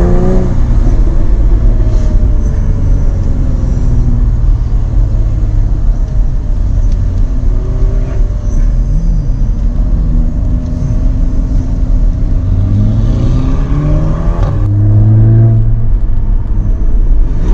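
Jaguar F-Type engine and exhaust under acceleration. The revs climb near the start, settle into a steady rumble, then climb again twice toward the end, with a few sharp pops along the way.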